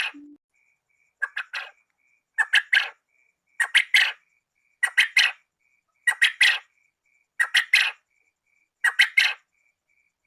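Quail calling: a call of three quick, sharp notes, repeated about once every second and a quarter.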